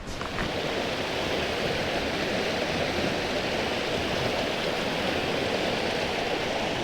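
Water of a small creek rushing steadily.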